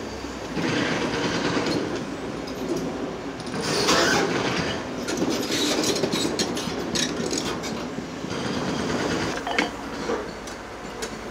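Excavator working on a track demolition: diesel engine running under a clatter of metal clanks and scraping, thickest about four seconds in and again around the middle.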